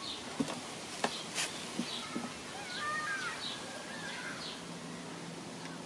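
A few sharp clicks and knocks in the first couple of seconds as a screwdriver and starter-motor parts are handled. Behind them a high chirp repeats about once a second, and a bird calls once about halfway.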